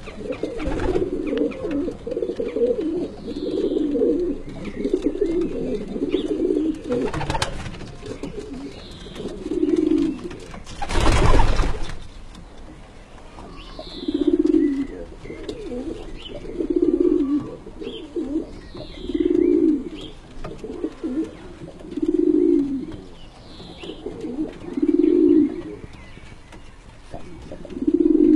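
Homing pigeons cooing. At first several birds coo over one another; then a drawn-out coo repeats about every two and a half seconds. Near the middle comes a loud rush of noise lasting about a second.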